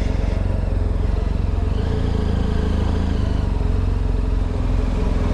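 BMW R1250GS's flat-twin (boxer) engine running steadily as the motorcycle rolls slowly along the street, heard from the rider's position.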